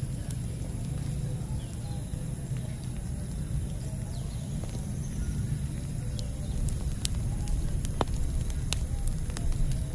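Campfire burning: a steady low rumble of flame, with sharp crackles and pops from the burning wood that come more often in the second half.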